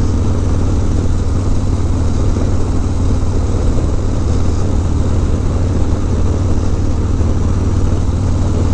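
Harley-Davidson Dyna V-twin motorcycle engine running steadily while riding, heard from the handlebars, with wind noise over it.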